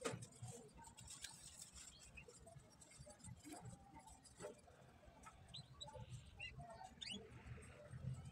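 Near silence: faint room tone with scattered small clicks and a few short, high chirps about two-thirds of the way through.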